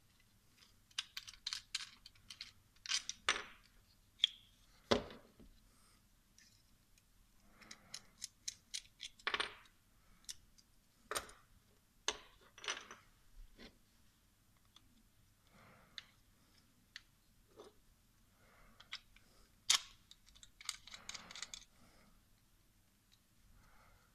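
Irregular clicks and rattles of hard plastic GoPro mount parts (the camera's clear housing, pivot arms, thumbscrew and quick-release buckle) being handled and fitted together, with a sharper knock about five seconds in.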